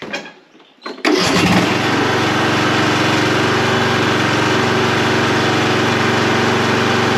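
A small petrol engine starts about a second in and then runs loud and steady at a constant speed, after a few short knocks and clatters.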